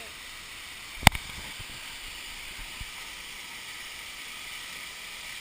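Steady rush of flowing water, with a sharp knock about a second in and a fainter one near the middle.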